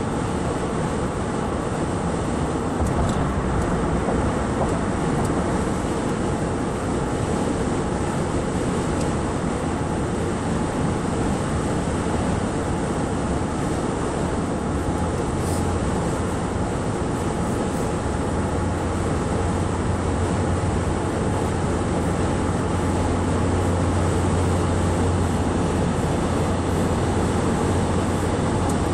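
Steady road noise inside a car's cabin at highway speed, the even rush of tyres and wind, with a low drone that grows stronger about halfway through.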